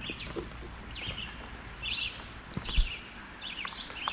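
Birds chirping, short quick calls repeating over a light outdoor background, with one low knock about three quarters of the way through.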